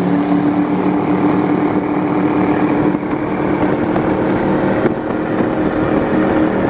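Powerboat engines running steadily at high speed, a constant drone over rushing water and wind noise, with a single brief knock about five seconds in.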